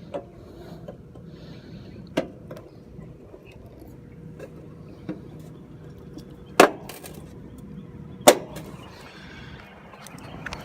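Several sharp clicks and knocks from handling work, about five in all, the two loudest about six and a half and eight seconds in, over a faint steady hum.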